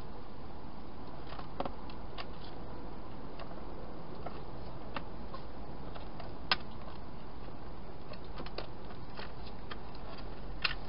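Wild hedgehog eating inside a plastic feeding box: scattered sharp clicks and crunches, louder once about six and a half seconds in and again near the end, over a steady hiss.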